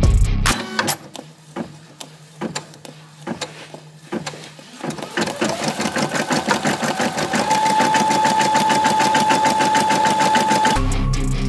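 Embroidery machine stitching. For the first few seconds there are only scattered clicks over a low hum. About halfway in it runs fast, with rapid even needle clicks and a motor whine that rises and then holds steady, until it stops shortly before the end.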